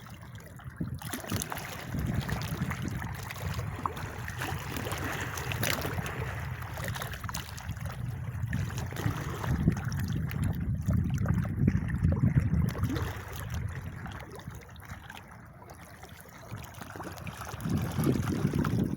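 Running, splashing water with a low rumble that swells and eases off several times.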